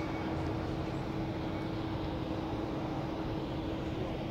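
Steady outdoor urban background noise, a distant traffic hum with a faint steady tone running through it.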